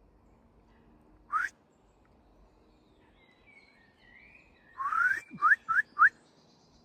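Rising whistled notes: one short upward whistle about a second in, then near the end a longer rising whistle followed quickly by three short upswept whistles.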